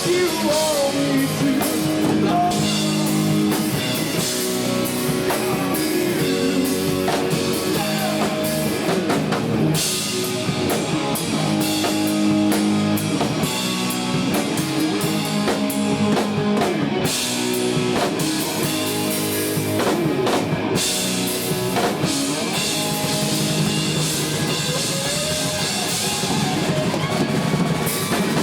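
Live blues-rock band playing: electric guitar lines with bends over a driving drum kit.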